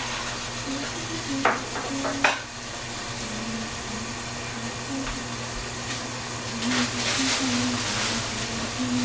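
Food sizzling in a cooking pan, with two sharp knocks of a utensil against the pan about a second and a half and two seconds in. The sizzle grows louder near the end.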